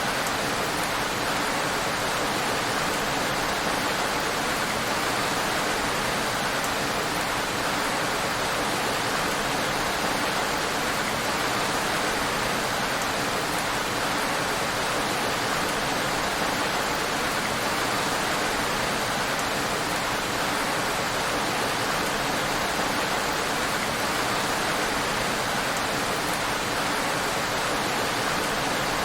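Heavy rain falling steadily on a road: an even hiss with no single drops or other events standing out.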